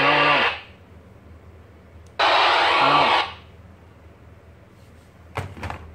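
Baofeng BF-888S handheld radio giving two loud bursts of static hiss with no voice on it, each about a second long, sharp-edged and ending in a short falling tone. A few faint handling clicks follow near the end.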